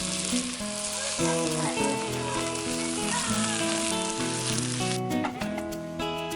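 Food sizzling as it fries, over background music; the sizzle cuts off suddenly about five seconds in, leaving only the music.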